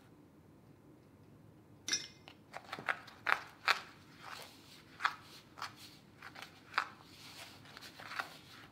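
Metal spoon scraping and clinking against a bowl while stirring powdered sugar into meringue-powder water for icing, the mix still stiff and crumbly. Quiet for the first two seconds, then irregular sharp clinks and scrapes, several a second, with a brief ring of the spoon on the bowl at the first stroke.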